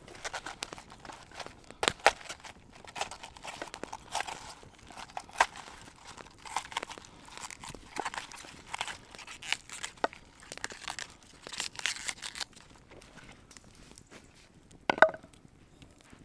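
Pak choi being cut and its crisp leaves snapped and torn off the head: a quick string of crunches, snaps and crinkling. A quieter stretch follows, then one loud sharp crack near the end.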